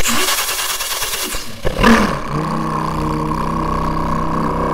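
A man imitating a twin-turbo Lamborghini Huracán cold start with his mouth into a microphone inside a paper-towel roll: a hissing crank for about a second and a half, a sharp flare as the engine catches, then a steady idle hum.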